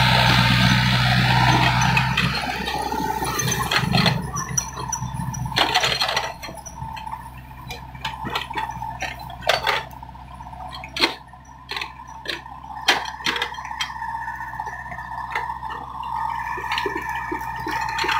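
Doosan mini excavator's diesel engine running loudly for the first couple of seconds, then settling lower, while the bucket digs in muddy water at a bank: water sloshing, with many sharp knocks and clinks from the bucket and linkage.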